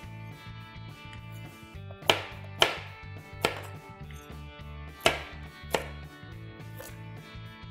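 Chef's knife chopping carrots into chunks on a plastic cutting board: five sharp knocks of the blade on the board, starting about two seconds in, the second pair about a second and a half after the first, over soft background music.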